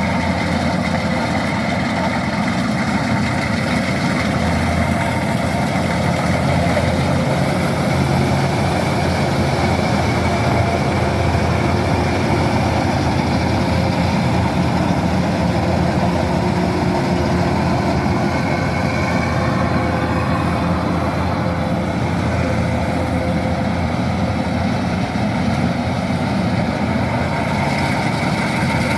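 Kubota DC-108X combine harvester running steadily, its engine and machinery making a continuous, even drone.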